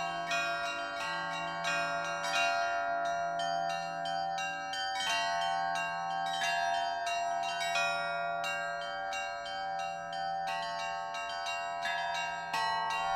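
Set of church bells rung by hand in a continuous Russian-style peal: small high bells struck rapidly, several times a second, over ringing middle bells, with a deeper bell struck every few seconds.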